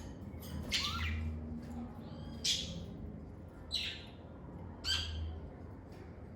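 Lovebirds giving short, sharp chirps and squawks, four or five separate calls about a second apart.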